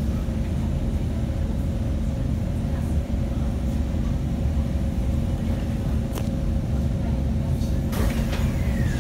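Inside a C151 metro car as it slows into an underground station: a steady low rumble with a faint steady hum, a sharp click about six seconds in and another near the end, and a short falling whine just before the end.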